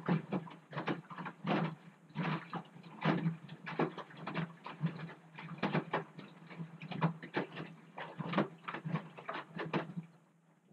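Front-loading washing machine tumbling a wash: wet laundry and water slosh and slap inside the turning drum over a steady motor hum. The tumbling stops abruptly near the end.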